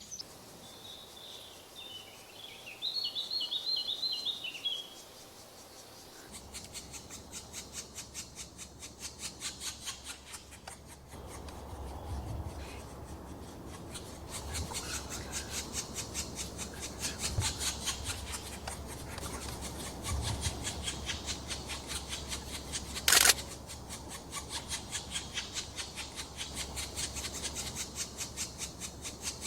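Black woodpecker nestlings at the nest hole making their rhythmic, rasping begging calls, several pulses a second, kept up without a break. A short run of high chirps comes in the first few seconds, and one sharp knock comes near the end.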